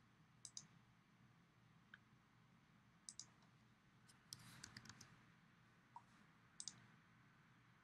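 Faint computer mouse clicks, each a quick press-and-release pair, heard a few times, with a short flurry of quicker clicks near the middle.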